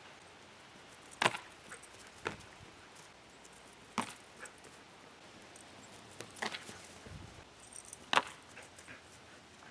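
Sharp, short knocks or clacks, about five of them spaced irregularly, the loudest near the end, over a low steady background.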